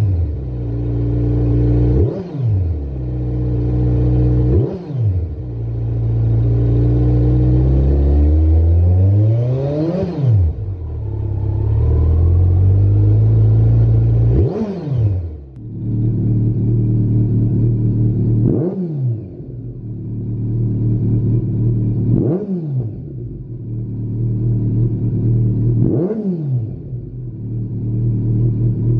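Kawasaki Z900's inline four-cylinder engine through a Lextek GP1 aftermarket silencer, idling and revved with quick throttle blips every few seconds, each rising and dropping straight back to idle. There is one slower, longer rev that climbs and falls about ten seconds in.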